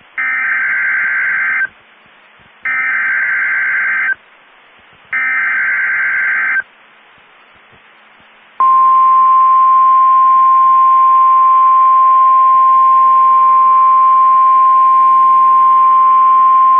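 NOAA Weather Radio emergency alert opening: three bursts of warbling SAME digital header tones, each about a second and a half long, with low hiss in the gaps. About two seconds after the last burst comes the steady 1050 Hz warning alarm tone, which holds without a break. Together they announce a Severe Thunderstorm Watch alert.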